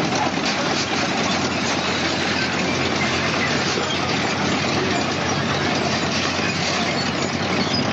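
A wheeled armoured vehicle's engine running steadily at idle, under a dense, even hiss of noise.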